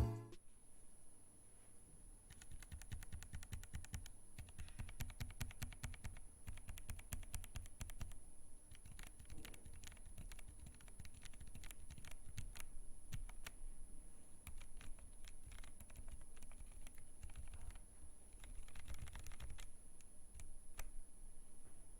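Typing on a mechanical keyboard fitted with Gateron KS-3 Milky Pro Yellow linear switches: a fast, steady run of keystrokes starting about two seconds in, with a brief pause near the middle.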